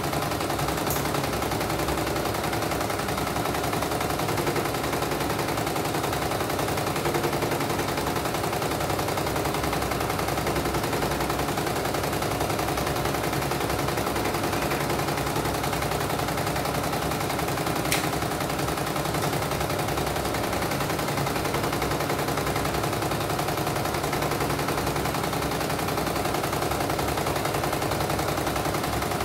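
CNY E900 computerized embroidery machine stitching a design: a rapid, steady run of needle strokes with the hoop carriage stepping, on a test run after a mainboard replacement that shows the machine working again.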